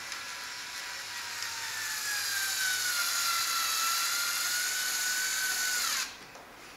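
Cordless drill running steadily for about six seconds while fastening a pad eye to a plastic kayak hull, its whine sagging slightly in pitch under load before it stops abruptly.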